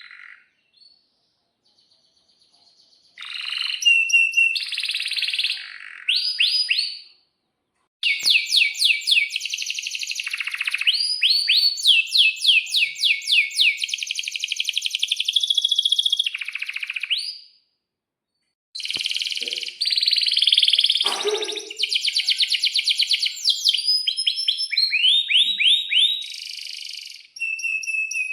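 Domestic canary singing: fast rolling trills and quick repeated chirps, high-pitched, in long phrases broken by short pauses, starting about three seconds in.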